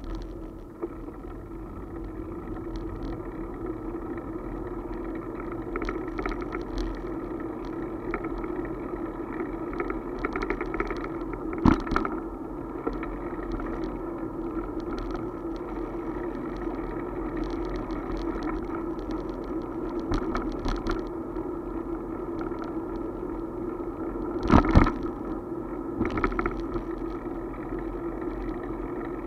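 Bicycle riding noise on a paved city path: a steady rolling rattle with a hum, broken by two sharp knocks, about twelve and twenty-five seconds in.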